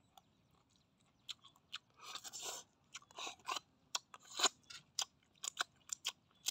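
A person eating cooked snails in their shells, sucking the meat out and chewing: an irregular run of short smacking clicks, with a few longer sucking slurps in the middle.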